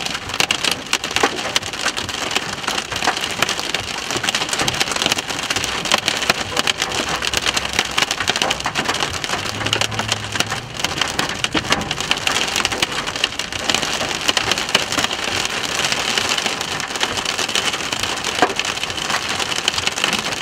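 Heavy rain pelting the roof and windshield of a vehicle, heard from inside the car as a steady downpour peppered with sharp ticks of individual drops.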